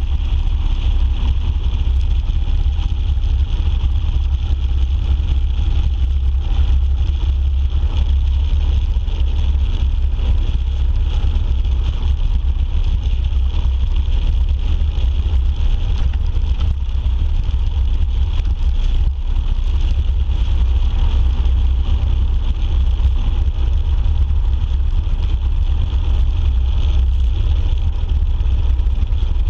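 Steady wind rushing over the microphone of a cruiser motorcycle riding at road speed, with the low drone of its engine underneath.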